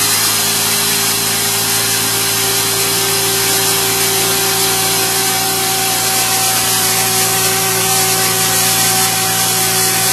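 A machine running steadily and loudly: a constant whine over a hiss, with no change in speed or breaks.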